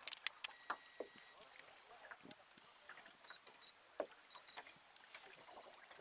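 Near quiet with a faint steady hiss and a few scattered small knocks and clicks, the sharpest just after the start and one about four seconds in.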